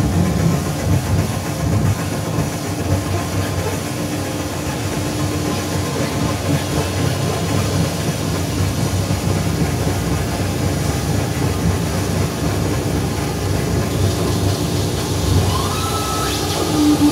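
Modular synthesizer noise music: a dense, low, hissing drone built from feedback and processed recordings. A steady low tone runs underneath, and near the end a tone glides up and holds.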